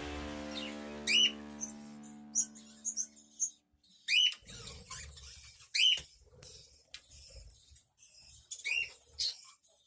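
Budgerigars in a colony aviary giving short, sharp chirps, one or two at a time every second or two. Under the first few seconds a lingering musical tone fades away.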